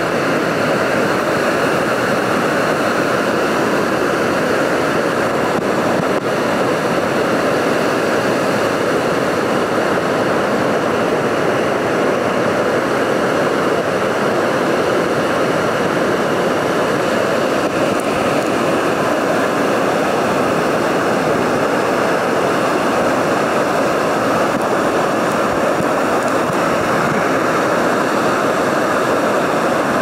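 Fast-flowing river water rushing steadily near a waterfall, an even, unbroken sound.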